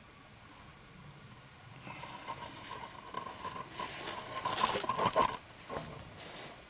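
Metal scraping and clicking of a brake spring tool working the top return spring onto the shoes of a drum brake, starting about two seconds in with a thin steady tone under it, loudest near the middle, then a couple of separate clicks.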